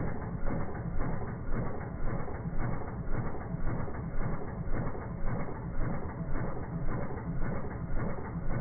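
Kohler Courage lawn-mower engine running, slowed down in slow motion so its firing comes through as deep, even chuffs a little over once a second, like a steam engine. It runs smooth and nice with no odd noise, the sign of correctly set valve clearances.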